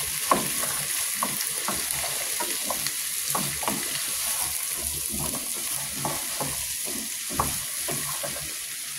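Beef and potatoes sizzling in a pot while a spoon stirs them, with irregular knocks and scrapes of the spoon against the pot, sharpest about a third of a second in and again near seven and a half seconds.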